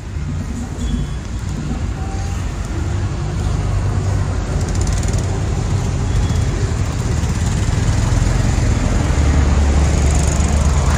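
Road traffic: engine noise of passing vehicles, a steady low rumble that grows louder toward the end.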